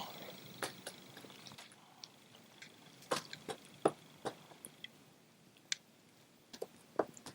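Pileated woodpecker chiselling into wood: single sharp knocks at irregular intervals, bunched in the middle and again near the end.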